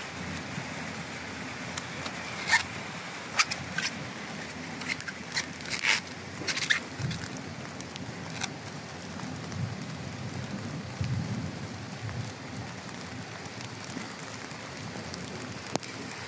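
Water running and pattering over wet roof tiles, a steady wash with a few short sharp ticks during the first half.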